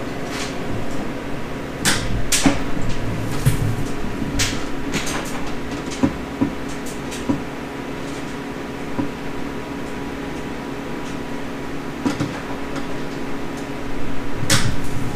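Scattered clicks and knocks of tools and metal parts being handled on a steel workbench, over a steady hum, with a louder stretch near the end.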